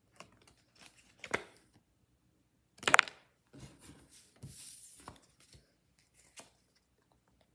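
Pokémon trading cards being handled: stiff card stock slid and flicked through the hands, a few sharp clicks with the loudest about three seconds in, and a short sliding hiss a little later.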